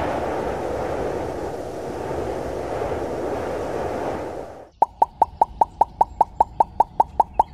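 A steady rushing noise that cuts off suddenly about two thirds of the way in, followed by a fast, even series of short cartoon pop sound effects, about five a second.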